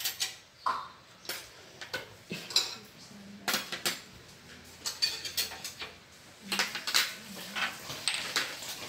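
Metal cutlery clinking and clattering as knives, forks and spoons are picked up and laid down on a plastic tray, in many short, irregular clinks.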